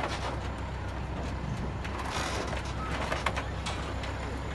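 Wooden farm hay wagon rattling and clanking as it is towed along, with a few sharper knocks, over a steady low drone.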